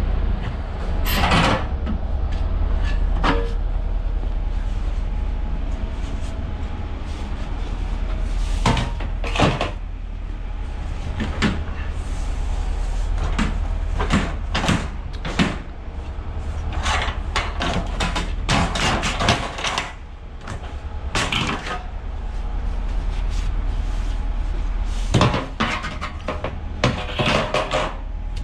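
Ratchet straps and their metal hooks and buckles being handled on a curtainsider trailer's load bed: irregular sharp clanks and clicks, some in quick clusters, over a steady low rumble.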